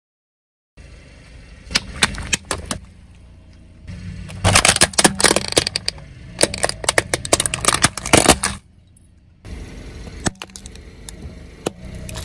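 A car tyre rolls slowly over a plastic toy car and crushes it, with a dense run of loud cracks and snaps lasting several seconds over the low rumble of the car. After a short quiet gap, the tyre rolls up onto a group of small candy cans with a few scattered clicks.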